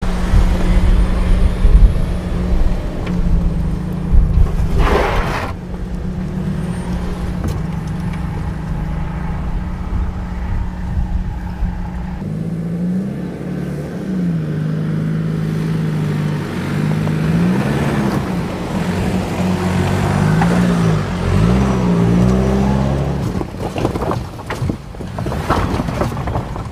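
Toyota Tacoma i-FORCE MAX hybrid's turbocharged 2.4-litre inline-four running at low speed under a low rumble, with a brief rush of noise about five seconds in. From about halfway, the revs rise and fall again and again as the truck works over dirt and rocks.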